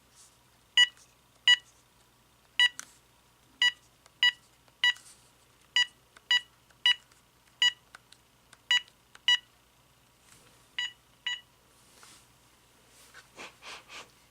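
Keypad beeps from a General Electric 2.4 GHz cordless phone handset as its buttons are pressed one after another: about fourteen short beeps, all of the same pitch, at an uneven pace, showing the keys work. A few faint clicks follow near the end.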